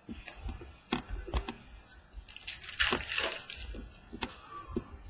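Trading cards being handled and flipped through by hand: a series of light clicks and card-on-card slides, with a longer papery rustle about three seconds in.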